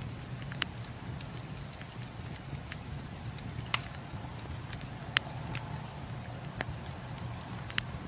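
Wood logs burning in a fireplace: a steady low noise of the flames, with about five sharp crackles and pops from the burning wood, the loudest two near the middle.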